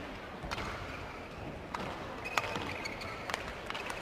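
Badminton court sounds: a steady arena hubbub with a few scattered sharp taps and a brief high shoe squeak about two-thirds of the way in.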